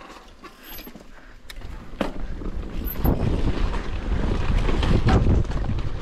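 Wind buffeting the microphone of a mountain bike rider, building to a loud rumble from about two seconds in, with a few sharp knocks from the bike on rough trail.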